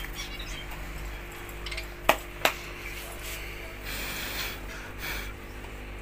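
A budgerigar being caught by hand in a wire cage: handling rustle, two sharp clicks about two seconds in, and a few brief high scratchy sounds.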